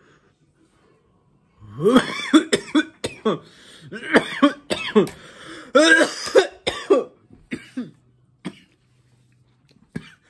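A man coughing in a fit right after a hit from a vape pen. It starts about one and a half seconds in with a rapid run of loud coughs for several seconds, then eases off into a few lighter coughs near the end.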